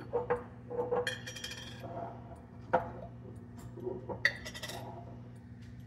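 Kitchenware being handled and set down: a series of clinks and knocks, two of them ringing on for about half a second, about a second in and just past four seconds in.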